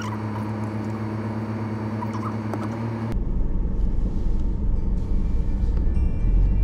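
Car heard from inside its cabin: a steady low engine hum that changes abruptly about three seconds in to a louder, deeper rumble.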